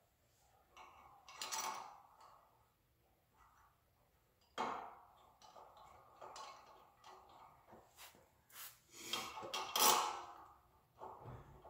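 Metal clinks, knocks and scraping as M12 Allen-head bolts are fitted and turned with a 3/8 Allen tool to fasten a steering arm to a spindle. The sounds come in a few short bursts, with a sharp knock near the middle and the loudest scraping near the end.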